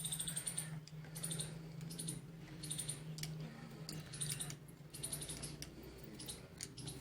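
Irregular short bursts of high scratchy clicking and scraping as an IC is desoldered and worked off a charger's circuit board, over a steady low hum.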